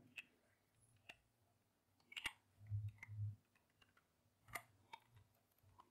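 A handful of faint, scattered computer keyboard and mouse clicks, spaced irregularly, with near silence between them.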